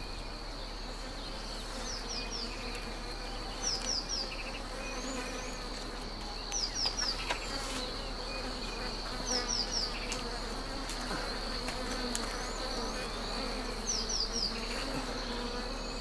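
Wild honey bees buzzing steadily around their nest in the tree, with a steady high note held throughout. Short high chirps come in quick groups of two or three every couple of seconds.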